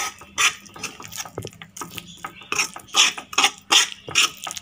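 Stainless steel slotted spatula scraping and clicking against the pan while stirring roasted cashews and raisins into thick carrot halwa: an uneven run of short scrapes and clicks.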